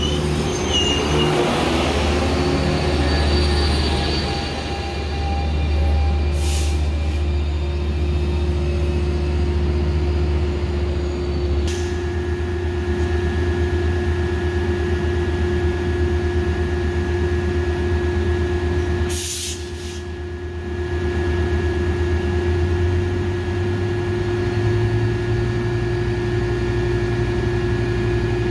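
A Metrolink double-deck train rolling past close by with its wheels squealing for the first few seconds. Then the steady running of a Metrolink F125 locomotive's Caterpillar V20 diesel engine idling at close range, a constant hum whose low note steps up slightly near the end.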